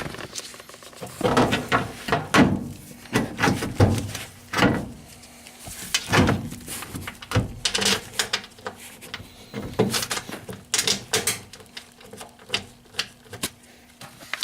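The sheet-metal front panel of a front-loading washing machine being handled and fitted back into place: irregular clunks, knocks and scrapes of metal against the cabinet.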